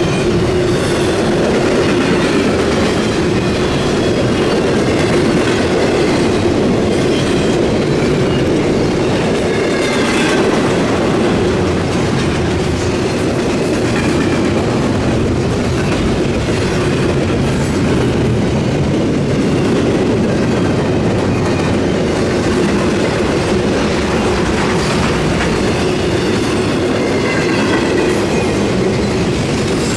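Intermodal freight train of double-stack container cars and trailer flatcars rolling past: a steady loud rumble of steel wheels on rail with clacking over the rail joints, and faint wheel squeal now and then.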